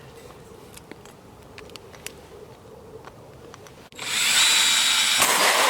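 A few faint ticks, then about four seconds in a power drill driving a 4-inch hole saw starts suddenly and runs loud and steady, cutting the vent hole through the roof.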